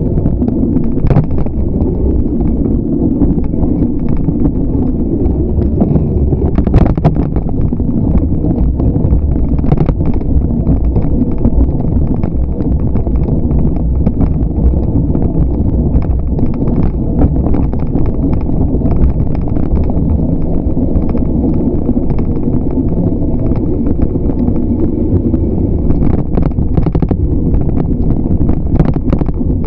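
Riding a bicycle: steady wind rumble on the microphone, with frequent small clicks and rattles from the bike over the road, more of them near the end.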